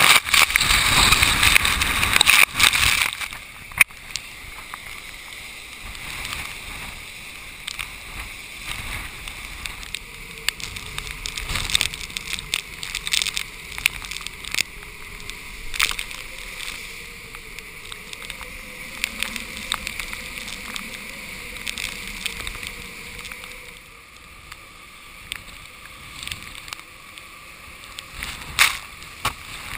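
Hurricane wind and blowing sea spray: heavy wind rushing across the microphone for the first three seconds or so, then a lower steady rush of wind and surf. Scattered sharp taps run through it as spray and rain strike the camera.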